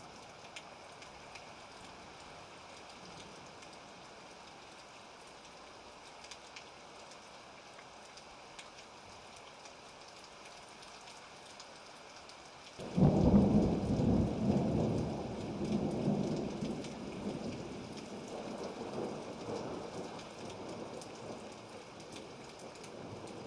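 Thunderstorm: steady rain, then about halfway through a sudden loud clap of thunder that rolls on as a rumble and slowly fades over several seconds.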